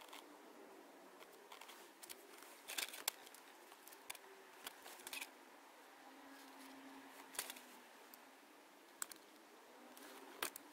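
Light handling sounds: scattered small clicks and plastic knocks from a 12 V socket, its plastic connector and wiring being fitted into a car's centre console, a few sharper clicks standing out about three seconds in, near the middle and near the end.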